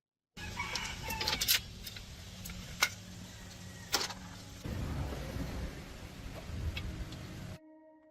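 Three sharp knocks, a little over a second apart, over a steady low rumbling background. A crowing animal call sounds in the first second or two. Near the end it all cuts off to a faint steady hum.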